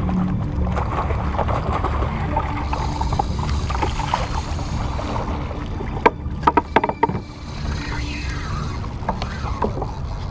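Water sloshing around a plastic kayak, with wind on the microphone, and a few sharp knocks about six to seven seconds in as a paddle hits the hull.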